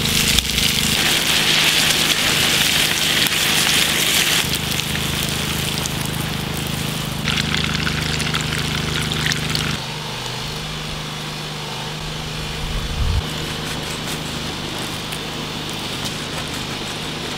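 Fish cutlets sizzling in oil in a frying pan, the sizzle coming and going in stretches. Under it runs the steady hum of a small petrol generator, which changes about ten seconds in.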